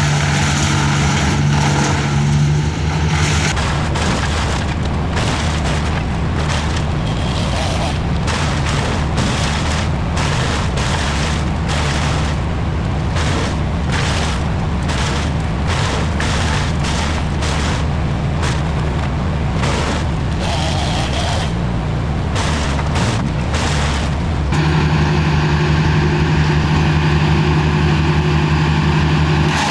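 Engines of heavy work machinery running steadily, with a lower, rougher stretch in the middle broken by many irregular knocks and thuds.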